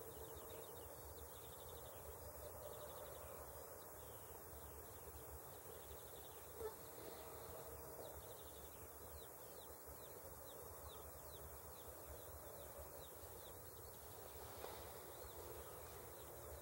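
Faint, steady outdoor background noise with no clear bird calls, and a single soft tap about six and a half seconds in.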